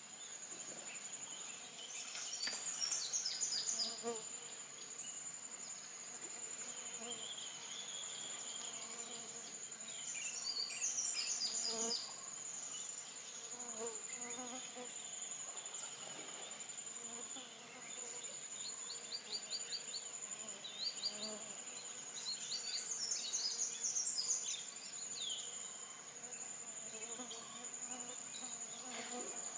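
A steady high-pitched drone of insects runs throughout. Bursts of quick, high chirping notes come several times, in runs of a second or two.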